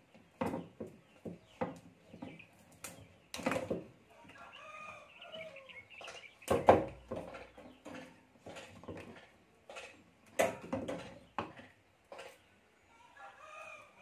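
Scattered clicks and knocks from table-fan wires and a small capacitor being handled, the loudest a sharp knock about halfway through. A bird calls in the background around the middle and again near the end.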